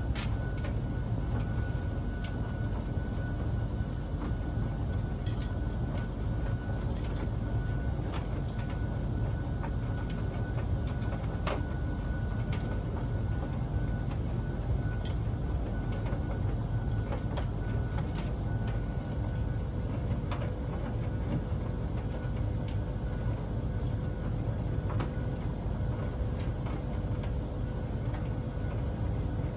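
Beko DSX83410W tumble dryer running with a steady low rumble, a faint steady hum and scattered light clicks. The owner takes this awful lot of loud noise to come from its condensing tank.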